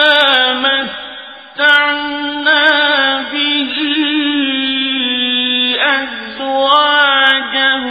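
A man's solo voice reciting the Quran in a slow, melodic chant, holding long notes with ornamented turns in pitch; the voice tails off about a second in and a new phrase begins at about a second and a half.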